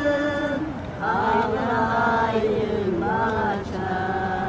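Unaccompanied singing: one voice holding long notes that slide up and down, in phrases broken by short breaths.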